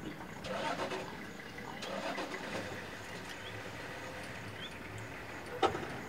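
A vehicle engine idling steadily, with a brief leopard snarl near the start. A single sharp click about five and a half seconds in is the loudest sound.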